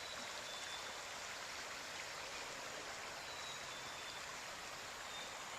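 Fast-moving floodwater of a swollen river rushing past, a steady even rushing sound.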